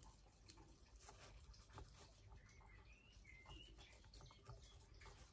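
Near silence: faint scattered ticks and scrapes of a wooden stick and fingers working leaf cuttings into gritty potting soil, with a brief faint high chirp about halfway through.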